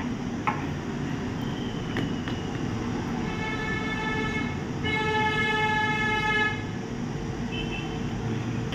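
A vehicle horn sounds twice over a steady low background hum, each held for about a second and a half from about three seconds in; the second is the louder. A few light clicks come in the first two seconds as a ribbon connector is handled on the board.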